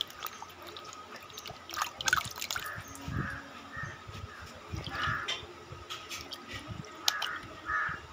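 Water splashing and sloshing in a bucket as a ripe palmyra palm fruit is scrubbed clean by hand, with short repeated bird calls in the background.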